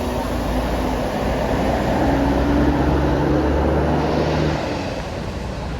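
A bus passing with its engine running, a low steady engine note over road noise that swells to its loudest about two to three seconds in and drops away about four and a half seconds in.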